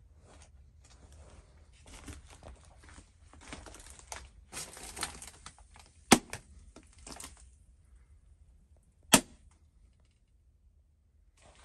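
Scattered rustling and crackling from someone moving over crumbled plaster and debris, with two sharp loud snaps about three seconds apart. Then it falls almost silent.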